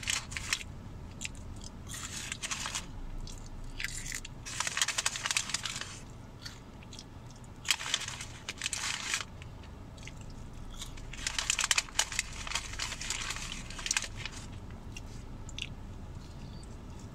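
A person chewing McDonald's French fries close to the microphone. The crunchy chewing comes in bursts of a second or two with short pauses between.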